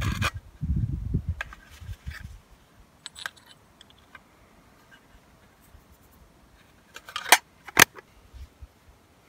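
A small hinged metal tin being handled: rustling and light metallic clicks as it is rummaged through, then two sharp metallic clicks about half a second apart, about seven seconds in.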